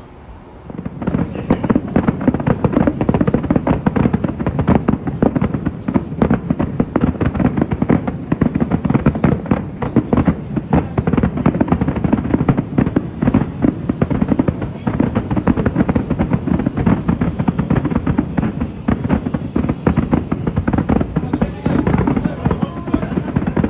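Fireworks display in a dense, rapid barrage: many bursts crackle and bang close together, starting about a second in and going on without a pause.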